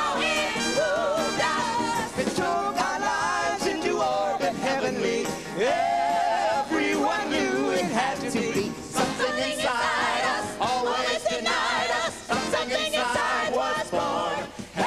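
Live band and group of singers performing a song, the voices sliding and wavering through long held notes over the band.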